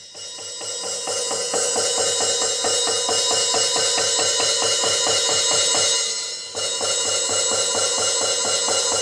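Alesis Surge Mesh electronic drum kit's open hi-hat sound, the stick striking the hi-hat pad in fast, even strokes with the pedal fully open. The strokes build from soft to loud over the first second or two, showing the pad's full dynamic range, and dip briefly about six seconds in before carrying on.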